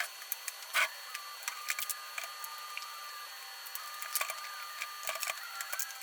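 A scattered series of light clicks and knocks, the loudest about a second in, over a faint intermittent whine.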